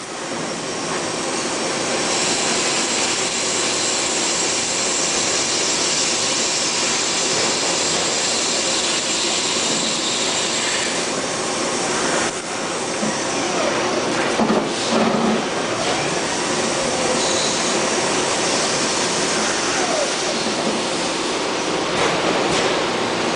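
1985 Mazak Quick Turn 20N two-axis CNC lathe running: a steady machine noise with a high whine through the first half, and a few short knocks and squeals a little past the middle.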